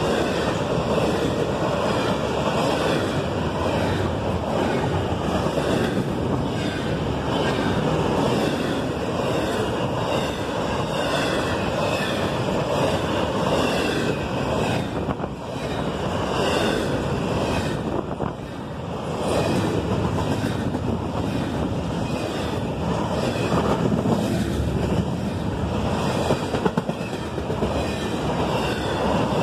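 Steel wheels of a passing intermodal freight train's double-stack container and trailer cars rolling by at close range: a steady rumble with a regular clatter of wheels over the rail joints.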